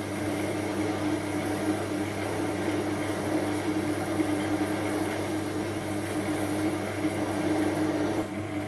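Small Chinese metal lathe running at its slowest speed with a heavy parting-off blade cutting into a large aluminium casting: a steady motor and gear hum under a rough scraping cutting noise. The cutting noise drops away near the end.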